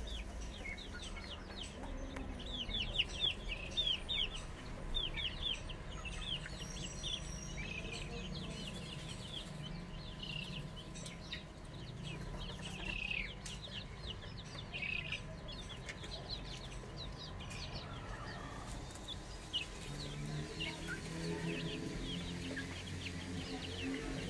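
A flock of young chickens peeping: many short, high chirps that fall in pitch, coming thick and fast in the first half and more scattered later.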